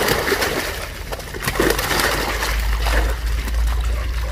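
Large live fish splashing and thrashing in shallow water as a basketful is tipped into a holding tank, with many short, sharp splashes.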